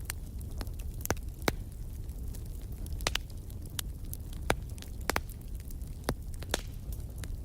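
Wood fire in a fireplace crackling, with sharp pops at irregular intervals over a steady low rumble of the flames.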